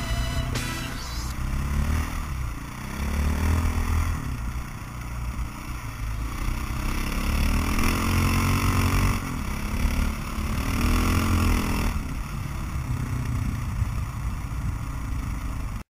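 Motorcycle engine running hard and accelerating, its pitch rising again and again as it revs up and shifts gears, heard from on board the bike with heavy wind rumble on the microphone.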